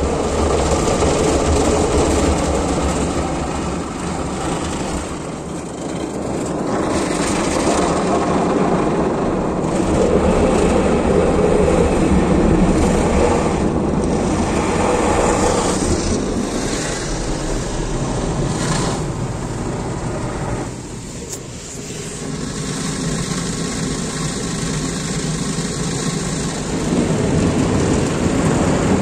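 Automatic car wash gantry working over the car, heard from inside the cabin: a continuous loud rumble and swish of rotating brushes and water spray against the body and windows, swelling and fading as the machine passes, with a brief lull about two-thirds of the way through.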